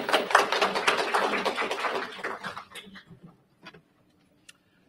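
A small audience applauding, the clapping dying away about three seconds in. A few scattered faint clicks and knocks follow.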